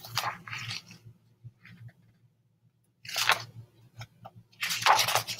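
Paper pages of a hardcover picture book rustling and crinkling as they are turned, in three short bursts.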